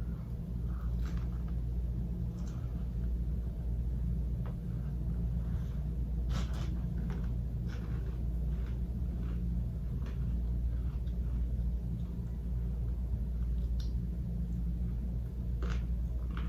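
Steady low room rumble, with a few faint short clicks of quiet eating.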